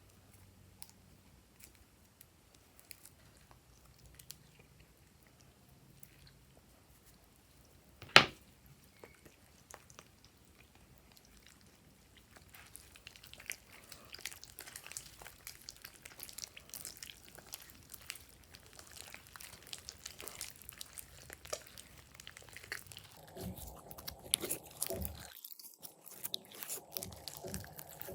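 Slime being worked by hand: a single sharp click about eight seconds in, then a growing stream of small crackling, popping clicks as the slime is squished and stretched.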